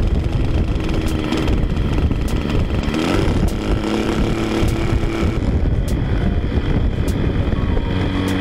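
RC airplane's glow-plug nitro engine running on the ground with its propeller spinning, the pitch holding steady, then shifting up and down as the throttle is worked while the carburetor is tuned.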